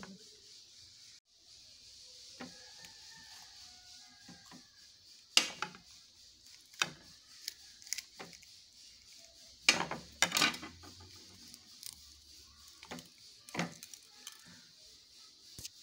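A small knife clicking and scraping against a ceramic plate as green chillies are slit open and their seeds scraped out: irregular sharp clinks, a few at a time, over a faint steady hiss.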